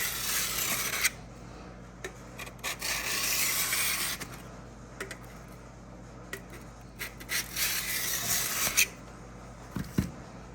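Steel drawknife blade stroked across a WD-40-lubricated 300-grit diamond sharpening block: three long, scraping strokes of about a second and a half each, with small clicks between them and a light knock near the end.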